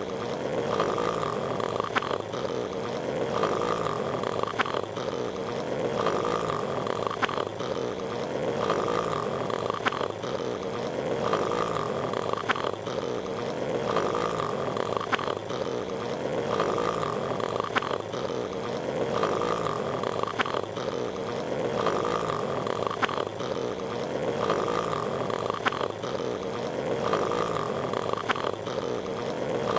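Patrick Star's cartoon snore repeating in a loop, one snore about every two and a half seconds, over a steady noisy background.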